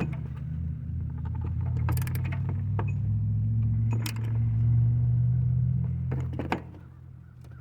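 A power tool driving a new air-fuel ratio sensor into the exhaust manifold through a swivel oxygen-sensor socket: a steady motor hum that grows louder and then stops about six and a half seconds in, as the sensor runs down tight, with a few sharp clicks.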